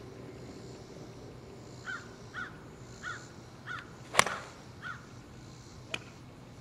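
An 8-iron strikes a golf ball off the grass with one sharp crack about four seconds in. Around it a bird gives about five short calls, and a fainter click comes near the end.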